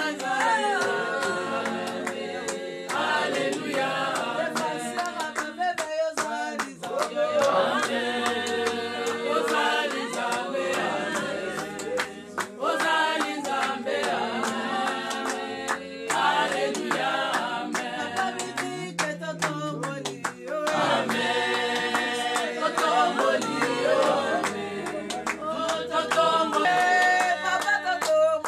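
A group of women singing together unaccompanied, with hand clapping.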